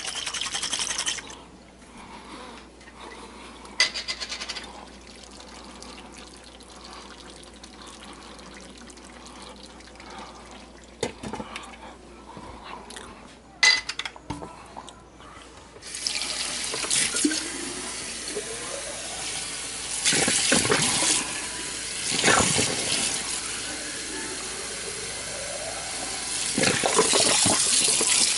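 Kitchen faucet running water into the sink, with a few clicks and clatters before it. The loud flow begins about halfway through, with a few rising tones in it, and is shut off at the very end.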